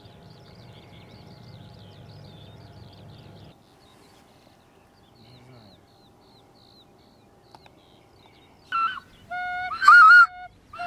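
Faint small-bird chirping over a low rumble for the first three seconds or so. About nine seconds in, a run of loud honking goose calls begins: several held notes, one wavering, the loudest near the end.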